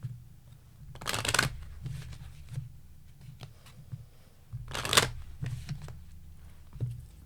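Tarot cards being shuffled by hand: two short riffling bursts about four seconds apart, with light taps and clicks of the cards in between.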